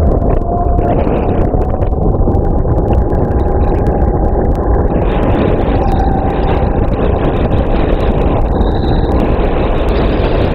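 Kart engine running steadily, heard from an onboard camera. Its note rises slightly over the first few seconds and then holds, over a heavy low rumble.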